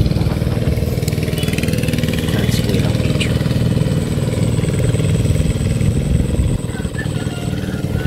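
Hand tractor engine running steadily while plowing a flooded rice paddy. Its level dips slightly about six and a half seconds in.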